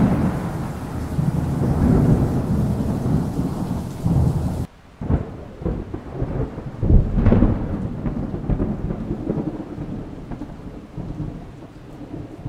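Thunder rumbling over the hiss of rain. About a third of the way in the rain cuts off abruptly, and separate rolls of thunder follow, the loudest about two and a half seconds later.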